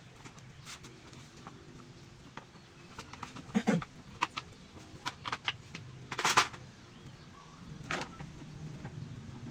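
A low steady hum with a handful of sharp clicks and knocks, like handling of hard objects; the loudest knock comes about six seconds in, with others about three and a half and eight seconds in.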